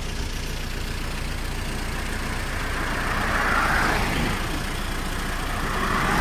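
Road vehicles passing along a highway close by, a steady engine and tyre rumble that swells as each goes past, loudest about three and a half seconds in and again near the end as a white Mahindra Bolero SUV approaches.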